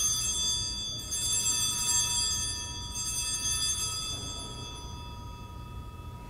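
Altar bell rung at the elevation of the consecrated host, its ringing renewed about a second in and again about three seconds in, then dying away.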